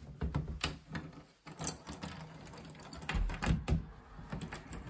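A ring of old keys jangling and clicking against a metal keyhole plate as keys are tried in a wardrobe door lock, with irregular metallic clicks and a brief pause about a second and a half in.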